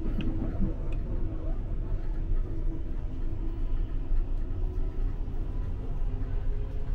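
Steady low rumble of a Brisbane suburban electric train running at speed between stations, heard from inside the carriage.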